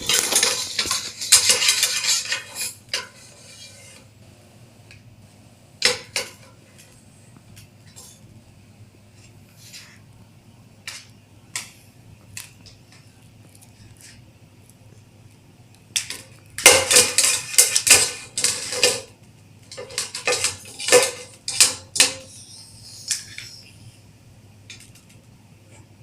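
Metal utensils clattering and clinking against pots and bowls as a small child stirs and bangs at play-cooking, in several bursts of rapid clatter with quiet pauses between.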